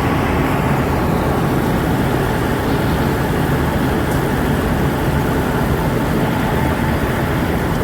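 John Deere 5310 combine harvester running steadily at work, a dense, unchanging mechanical noise of engine and machinery.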